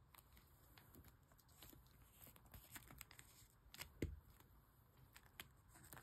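Faint rustling and small clicks of photocards and plastic binder sleeves being handled, with one louder soft thump about four seconds in.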